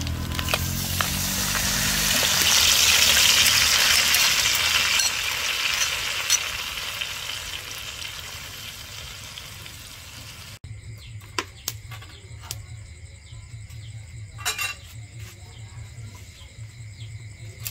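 Sauce poured over fried fish in a hot wok sizzles loudly, swelling to a peak a few seconds in and then fading as a spoon works it in. About ten seconds in, the sizzle gives way to a much quieter background with a low hum and a few light knocks.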